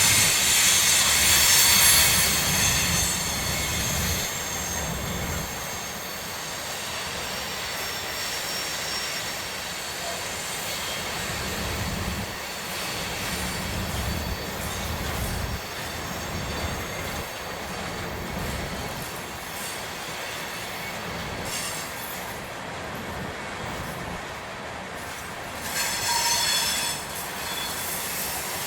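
Freight train cars rolling through a curve, a steady low rumble with the wheels squealing in high thin tones, loudest in the first few seconds and again briefly near the end.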